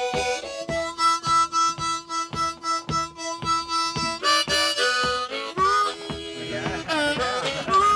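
Background music: a harmonica playing long held notes over a steady beat.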